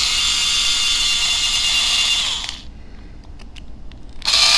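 Hobby Details electric hobby screwdriver running steadily as it backs a chassis screw out of the RC crawler, stopping about two and a half seconds in; a few light clicks follow, then the driver starts up again near the end.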